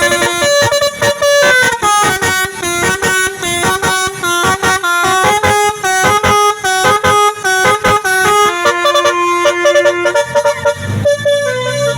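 Bus 'telolet Basuri' musical air horn playing a fast tune of short notes, several a second. Near the end the tune thins out and a lower sound sliding in pitch comes in.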